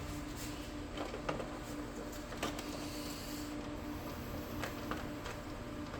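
Scattered small plastic clicks and taps from handling inkjet printer parts and ink cartridges, over a steady low hum.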